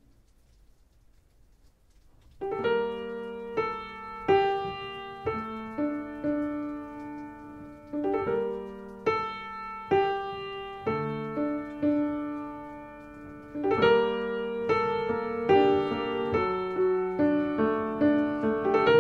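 Solo piano music: a piece begins about two and a half seconds in after a near-silent gap, with single notes and chords struck roughly once a second and left to ring.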